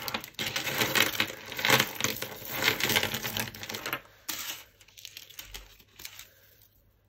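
Loose costume jewellery (glass, stone and plastic beads and metal chains) clinking and rattling as a hand rummages through a heap of it on a tabletop. The clattering is dense for about four seconds, then thins to a few scattered clinks.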